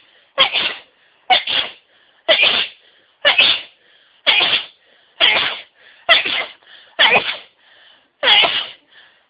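A person sneezing in a rapid fit, about nine sharp sneezes roughly one a second, with quick breaths drawn in between. The fit was brought on by inhaling white pepper.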